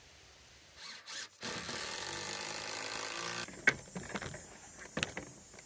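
A power tool runs for about two seconds, working into wood, then several sharp knocks follow.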